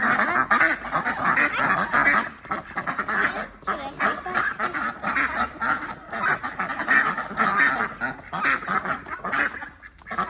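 Waterfowl calling: many short calls overlapping in a steady stream, with a brief lull near the end.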